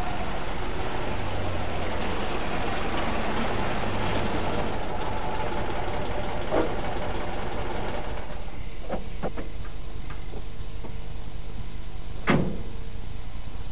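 Car engine idling under a steady hiss, with a few short knocks and one louder thump near the end.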